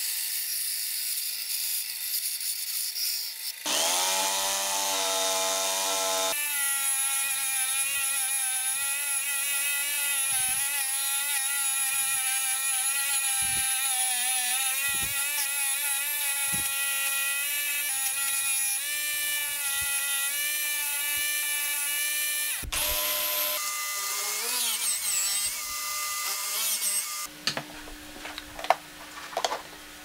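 Power saws cutting wood. First a band saw's steady hiss, then a saw motor winds up in pitch and runs at a steady whine while a narrow blade cuts out an opening. Near the end it gives way to lighter clicks and handling of the wood.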